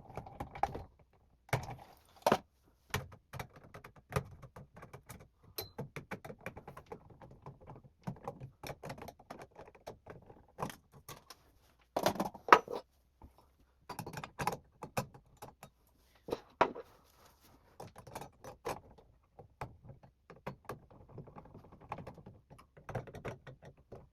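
Clicks and knocks of hardware being handled as a fire alarm strobe's adapter plate is fitted with its screws, irregular throughout, with a loud clatter about halfway.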